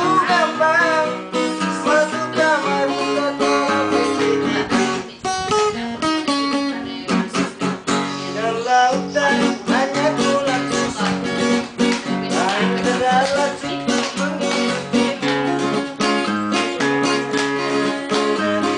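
Acoustic guitar strummed in a steady rhythm, with a man singing a melody over the chords.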